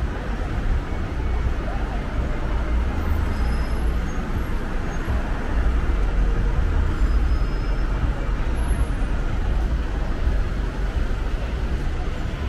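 City street ambience: steady road traffic, heaviest in the low end, with passers-by talking.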